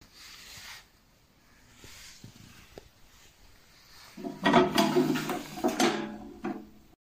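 Steel ammo box handled and its lid unlatched and swung open: faint handling and a few ticks at first, then a loud burst of metal clattering and scraping about four seconds in that lasts about two seconds.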